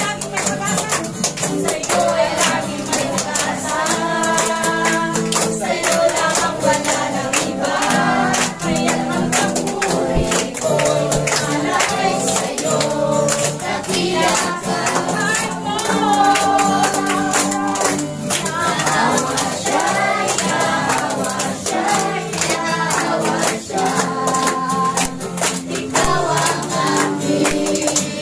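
Congregation singing a Tagalog praise song together, with a tambourine shaking and hands clapping along to the beat.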